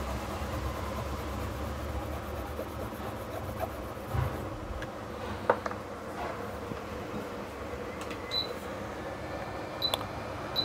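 Hot air rework station blowing a steady stream of air to melt solder paste while reballing a phone CPU, set to 300 °C with airflow at 70. A low rumble under the airy hiss fades about four seconds in, and a few faint clicks follow.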